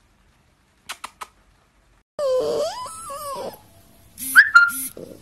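A husky's drawn-out, talking-like vocalization that slides up and down in pitch for about a second, then two short, sharp, high-pitched squeals from a husky puppy near the end. A few faint clicks come first.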